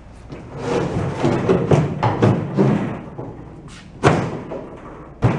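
A plywood transom board is pushed and worked down into an aluminium jon boat's transom, scraping against the metal for a couple of seconds. It then gives a sharp knock about four seconds in and two more near the end as it seats.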